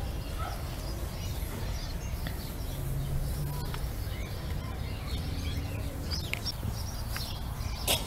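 Steady low outdoor background rumble with a few faint, high, short chirps now and then, mostly in the second half.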